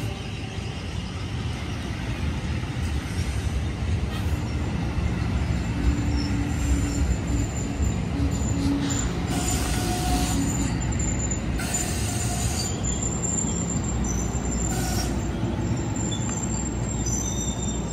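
A New Jersey Transit commuter train running past: a steady rumble of wheels on rail, with thin high wheel squeals in the second half.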